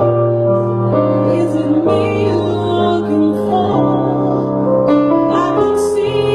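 Live band music led by an electric keyboard playing held chords that change every second or two.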